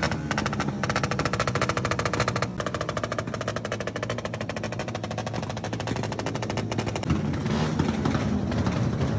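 Motorcycle engine revving hard on a stand: a rapid, even string of sharp exhaust pulses.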